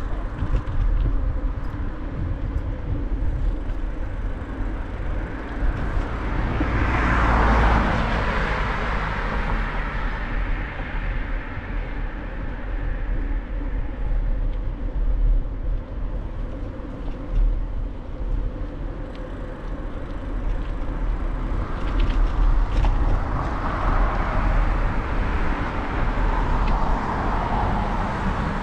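Street traffic heard from a moving bicycle: a car passes about seven seconds in, and another vehicle goes by near the end, over a steady low rumble.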